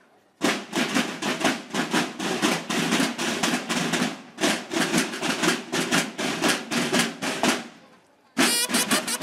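Drum and bugle band's snare and bass drums playing a brisk marching cadence on their own, the bugles silent. The drums stop briefly and the bugles come back in with them near the end.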